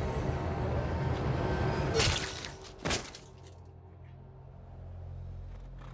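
Tense film score, cut by a loud sword blow about two seconds in and a second short impact about a second later. The music then falls away to a low, quiet drone.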